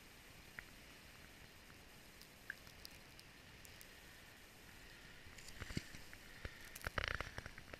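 Faint hiss for about five seconds, then scattered crunches and clicks of snow, densest near the end, as a snowboarder rides over the packed snow and a snow jump close by.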